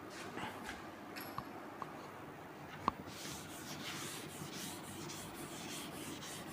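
Chalkboard duster being rubbed across a chalkboard in quick repeated strokes, a dry scratchy wiping that starts about three seconds in. Before it come a few light knocks, the sharpest just before the wiping begins.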